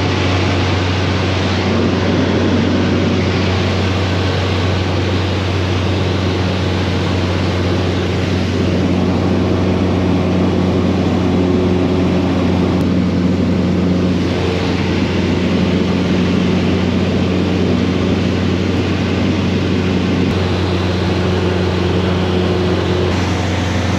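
Cessna single-engine light plane's piston engine and propeller running at a steady speed, heard from inside the cabin as a loud, even drone.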